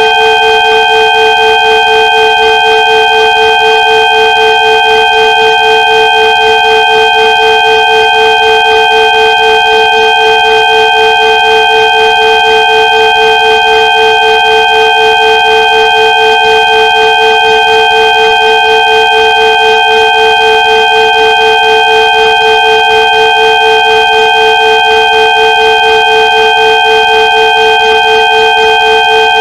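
Sound-therapy 'healing frequency' track: several steady electronic tones layered into one unchanging drone, held at a constant loudness.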